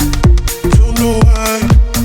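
Upbeat electronic dance music with a steady kick-drum beat, about two beats a second, under sustained synth notes.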